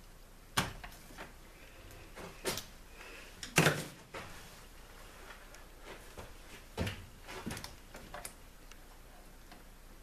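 Hand tools and wiring being handled at an open electrical panel, wire strippers among them: a string of about six separate clicks and knocks, the loudest a little over three seconds in.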